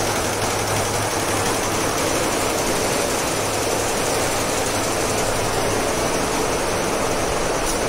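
Steady mechanical din of industrial multi-head embroidery machines running, with a constant low hum underneath.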